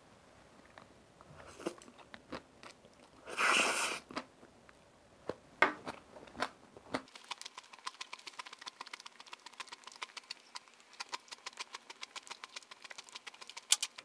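A person eating japchae (stir-fried glass noodles): a short noisy slurp about three seconds in, then close-miked chewing with many quick, wet little clicks through the second half.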